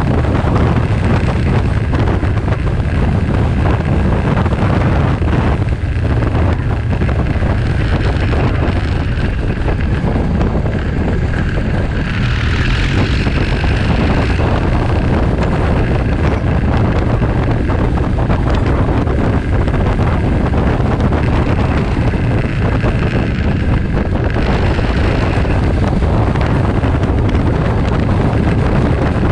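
Loud, steady wind noise on the microphone of a camera riding on a moving motorcycle, mixed with the motorcycle's engine and tyre noise at road speed.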